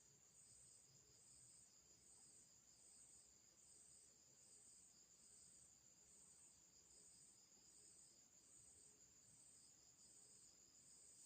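Faint chorus of insects, crickets by the sound of it, chirping: a steady high trill that pulses evenly a little faster than once a second.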